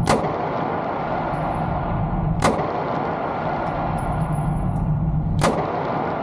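Three single pistol shots from a Savage Stance 9mm handgun, about three seconds apart, over a steady rushing background noise.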